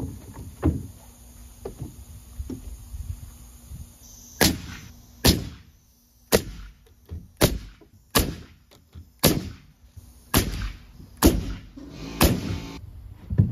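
Framing nailer firing nails into a header of 2x lumber sandwiching half-inch OSB: about nine sharp shots roughly a second apart, starting about four seconds in. Before the shots come a few knocks of the boards being set in place.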